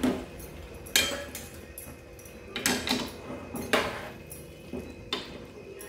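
A steel bowl, spoon and tongs knocking against a metal cooking pot as raw chicken pieces are tipped into the masala and stirred in: about six sharp metallic clanks at uneven intervals.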